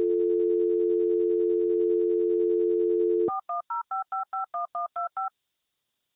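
Telephone dial tone, a steady two-note hum, for about three seconds, then ten quick touch-tone (DTMF) beeps, about five a second, as a number is dialled, then silence. It has the narrowband sound of a phone line, with nothing above 4 kHz.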